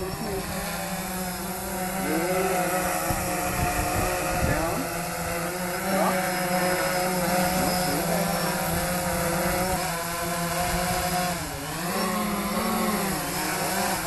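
DJI Phantom 3 quadcopter's motors and propellers buzzing steadily in flight, the pitch dipping and coming back up about twelve seconds in as the motors adjust. Wind buffets the microphone underneath.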